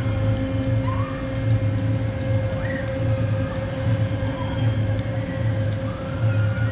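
A steady low mechanical hum that swells and dips, with a thin constant tone above it and short faint rising calls now and then.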